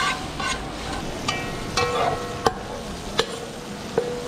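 Metal spoon stirring curry sauce in a large aluminium pot, knocking against the side about five times, some knocks ringing briefly, over a low sizzle of frying.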